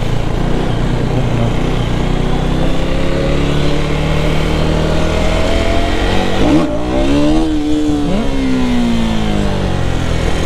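KTM Duke single-cylinder motorcycle engine pulling at low speed with wind noise on the microphone. Its pitch climbs slowly, shoots up in a quick rev about six and a half seconds in as the clutch is pulled for a wheelie attempt, then falls away steadily as the revs drop.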